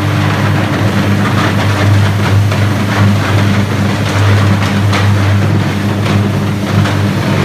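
Electric arc furnace arcing during a steel melt: a loud steady electrical hum with irregular crackling over it.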